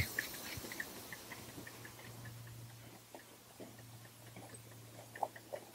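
Small 5-inch gauge live steam locomotive running towards the listener: a faint, quick rhythmic ticking, about four or five a second, that fades in the middle and comes back stronger near the end, over a steady low hum.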